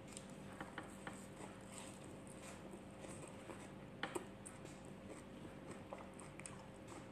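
Faint chewing of raw leafy greens, with soft scattered clicks and leaf sounds as the greens are picked from a bowl by hand, and a couple of sharper clicks about four seconds in, over a faint steady hum.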